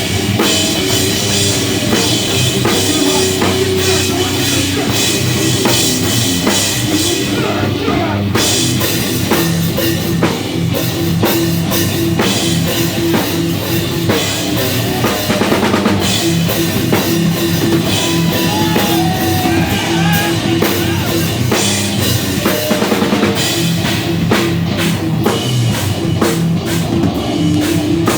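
Live rock band playing at full volume, with a drum kit, guitar and bass.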